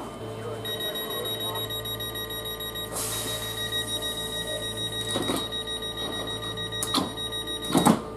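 Southeastern Class 465 Networker electric train standing at the platform, giving off a steady high-pitched whine. There is a short hiss about three seconds in, and a few sharp clunks near the end, the last one the loudest.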